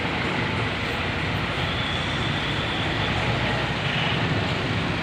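Steady noise of a large bus running close by, a low engine drone under road and wind noise, with no horn sounding.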